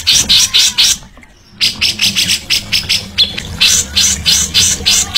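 Songbird giving a rapid run of harsh, rasping chatter notes, about four to five a second, with a brief break about a second in.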